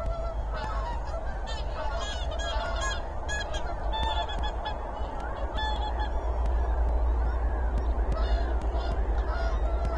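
Large flock of wild waterbirds calling over one another in a dense, continuous chorus of short calls, with a steady low rumble underneath.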